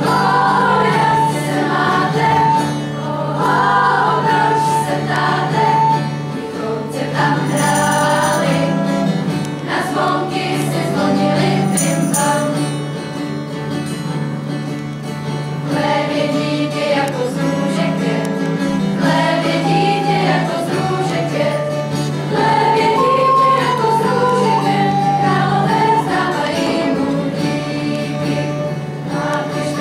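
Girls' school choir singing with acoustic guitar accompaniment and a recorder playing along.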